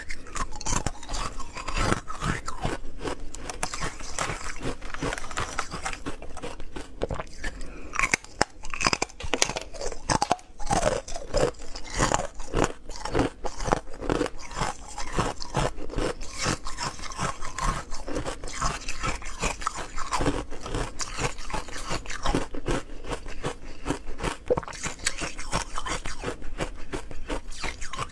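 Round discs of hard frozen ice being bitten and chewed: continuous, irregular crunching and cracking, one crunch quickly after another.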